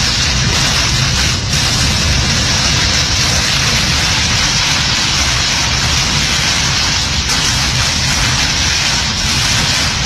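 Storm wind and driving rain, a loud, steady roar with a deep low rumble underneath.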